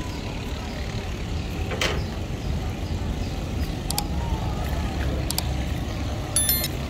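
Steady low rumble of motor traffic in a busy street. A few sharp knocks are heard, and a brief high-pitched ringing tone comes near the end.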